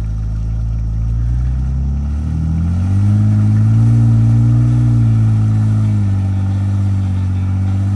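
Toyota Tacoma TRD Sport's engine revving under load as the truck, stuck in swampy mud in four-wheel drive, tries to pull itself free. The engine note climbs about two and a half seconds in, holds, and rises again near the end.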